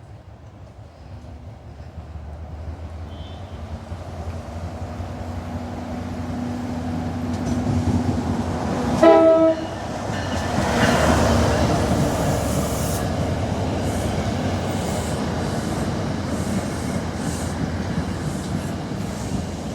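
A train approaching and getting steadily louder. It sounds a short horn blast about nine seconds in, then passes with a loud, steady rumble and rattle of rolling cars.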